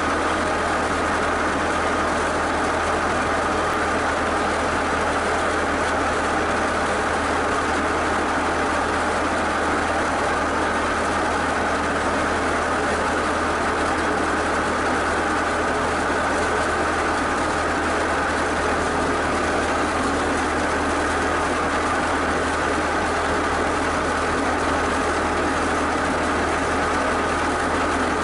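A mid-1970s skid steer's engine running steadily at an even pitch while the machine holds and lowers an engine hung from its bucket on chains.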